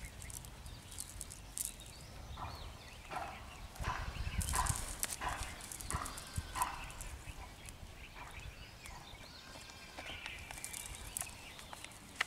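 Scattered light clicks and rustling of a nylon cast net and the mud and weed in it being picked through by hand for small fish, with a string of short chirp-like calls in the middle and low wind rumble on the microphone around the middle.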